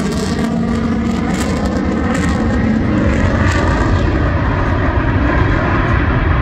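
Fighter jet in flight, its jet engines giving a steady low rumble that grows slightly louder toward the end.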